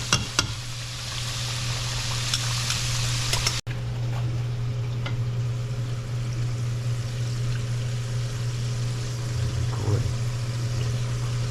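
Catfish fillets and shrimp frying in hot oil in a skillet: a steady sizzle with a few clicks at the start. The sound breaks off sharply about three and a half seconds in and comes back fainter over a steady low hum.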